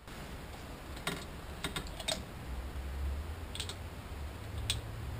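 Scattered light metallic clicks, about half a dozen, from small engine parts being handled. These are the connecting-rod bearings and caps being oiled and fitted onto the crankshaft of a Yamaha 90 hp two-stroke outboard. A faint low steady hum sits underneath.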